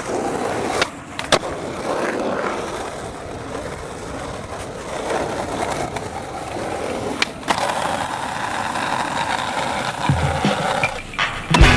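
Skateboard urethane wheels rolling over rough asphalt, with sharp cracks of the tail popping and the board landing, once about a second in and again around seven seconds. Near the end comes a heavier, lower scraping and rolling as the board rides along the top of a concrete wall.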